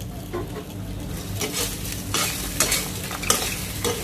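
Winged beans, roasted urad dal and dried red chillies being stirred together in a frying pan. The utensil scrapes the pan several times over a soft, steady sizzle.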